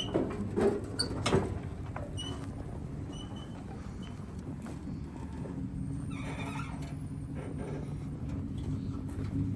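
Vehicle engine idling steadily, with a few short squeaks and knocks in the first two seconds and a scraping rustle around six seconds in.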